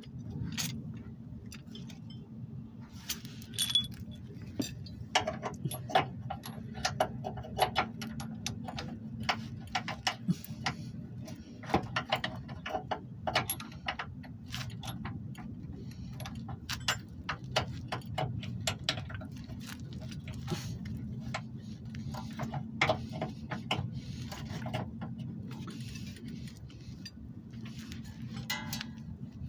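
Irregular metallic clicks and clinks of a loose bolt and metal parts being handled by a gloved hand at a car's lower control arm mount, over a steady low hum.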